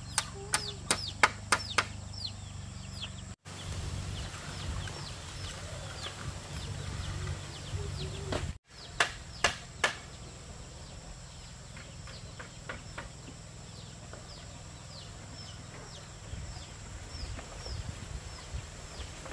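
Chickens chirping in short falling notes, over a low steady background rumble. Two quick runs of sharp knocks, the loudest sounds, come at the very start and again about nine seconds in.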